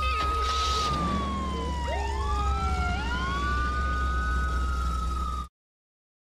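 Several police car sirens wailing at once, each rising and then slowly falling in pitch, out of step with one another, over a steady low rumble. The sound cuts off suddenly near the end.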